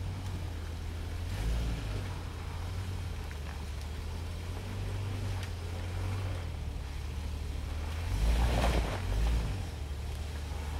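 Lifted Jeep Grand Cherokee's engine running at low revs as it crawls slowly over rock ledges, a steady low rumble. A louder surge comes about eight seconds in.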